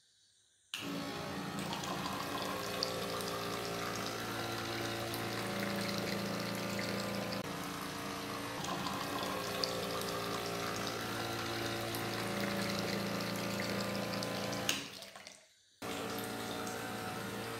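Water from a small DC-motor pump dispenser running in a steady stream out of a PVC pipe spout and splashing into a drinking glass. It starts about a second in, breaks off briefly near the end, then runs again.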